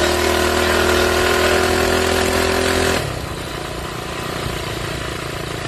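Minibike engine held at high revs under throttle, a steady buzzing note. About three seconds in the engine note drops away as the throttle is let off, leaving the rush of wind and rolling noise.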